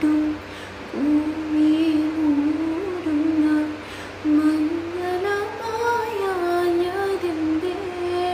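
A woman singing solo with no accompaniment, in long held notes, with a short breath about four seconds in, after which the melody climbs higher.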